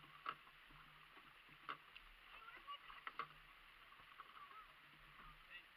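Near silence, with a few faint taps and faint distant bird calls.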